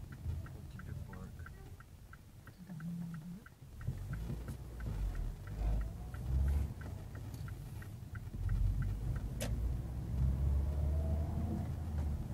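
Car's turn-signal indicator ticking evenly inside the cabin during a turn, stopping about eight seconds in, over engine and road rumble that grows louder from about four seconds in as the car pulls away. A single sharp click comes near the end.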